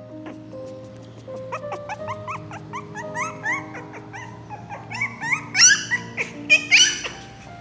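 Puppy yapping and whining in a quick run of short, high yelps, getting louder and more frantic toward the end: an angry puppy's fit of screaming. Background music plays under it.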